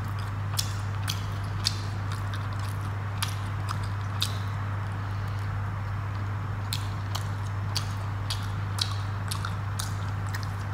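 Close-up eating sounds of rice and fish curry being chewed: irregular wet mouth clicks and smacks, about one or two a second, over a steady low hum.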